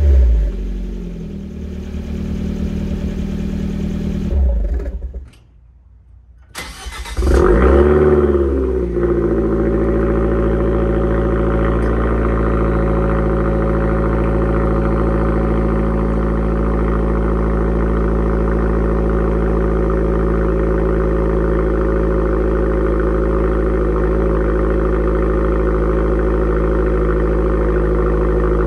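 Fiat 124 Abarth's turbo four-cylinder with a straight-through exhaust running, then going quiet for about a second and a half. It starts up about seven seconds in, flares and settles within a couple of seconds into a steady idle.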